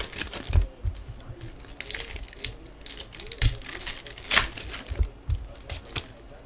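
Foil trading-card packs of 2015 Donruss Soccer being torn open and crinkled by hand, in irregular rustling bursts with the loudest about four seconds in. A few light knocks of cards and packs against the table.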